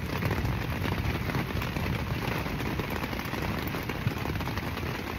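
Rain falling steadily on a tent's fabric, heard from inside the tent: a dense, even hiss of many small drop hits.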